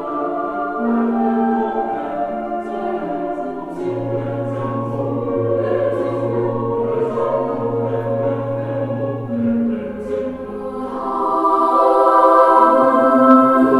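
Choral music played back through Energy C100B bookshelf speakers: voices holding long notes in harmony over a low bass line, swelling louder near the end.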